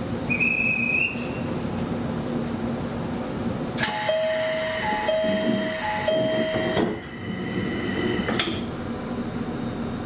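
JR Kyushu 787 series door chime sounding a short tone three times in a row, over a hiss, as the sliding door closes; about a second and a half after the chime stops, the door shuts with a single thump.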